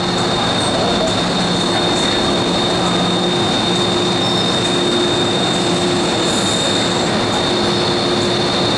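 MTR M-Train electric multiple unit pulling into a station platform and slowing to a stop, with a steady high-pitched squeal over a lower hum and running rumble.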